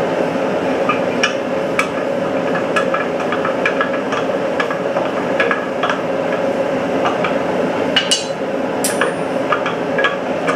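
Steady roar of a propane forge burner, with irregular metallic clinks and knocks of steel tongs against a quench cylinder as hot armor scales are stirred in the quench; the loudest knocks come about eight and nine seconds in.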